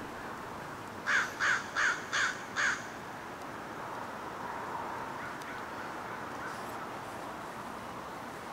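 American crow cawing five times in quick succession, harsh calls about a third of a second apart.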